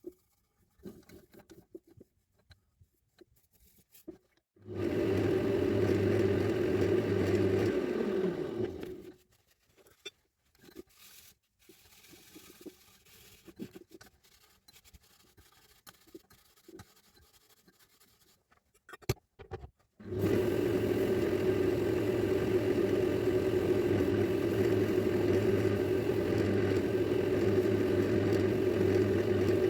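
Wood lathe motor switched on, running steadily for a few seconds, then switched off and spinning down with a falling hum. Small handling clicks and knocks follow, then the lathe starts again about two-thirds of the way in and runs steadily.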